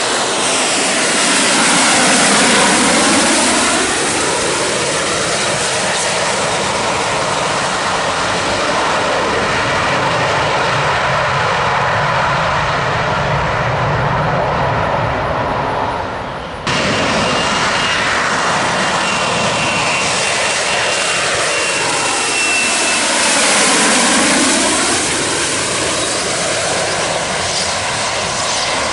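AV-8B Harrier's Rolls-Royce Pegasus vectored-thrust jet engine running at hover power, a loud steady roar. Twice, near the start and again about 24 s in, a slow sweeping whoosh moves down and back up through the roar. About 17 s in the sound dips briefly and jumps back at an edit, and a thin high whine sits over the roar for several seconds after it.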